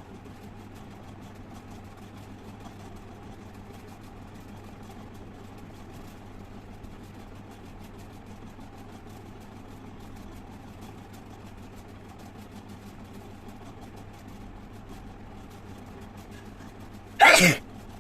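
Steady low hum of a running electric fan, then one loud human sneeze near the end that falls in pitch as it goes.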